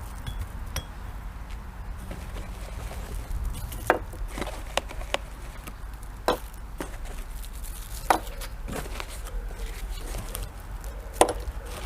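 Scattered sharp knocks and clinks of aluminium bench-rest parts being handled and set down on a hard surface, with a few louder taps spread irregularly through the stretch.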